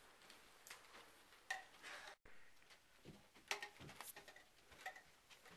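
Near silence with faint, scattered light clicks and knocks, and a brief dead-silent dropout about two seconds in.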